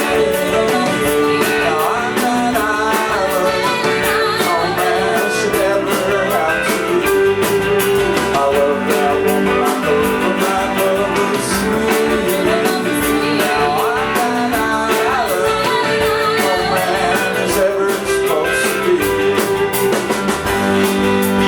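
Live rock band playing, with electric guitars, drums and a singer.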